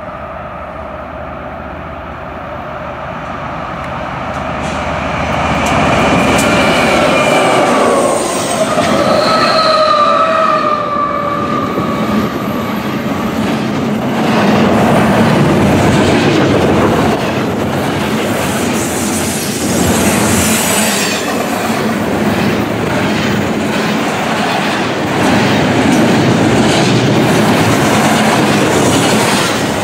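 BNSF intermodal train passing: the locomotives grow louder as they approach and go by, then double-stack container well cars roll past with a dense, continuous wheel-on-rail noise and clatter. About a third of the way in, wheel flanges squeal on the curve in high tones that waver and glide in pitch.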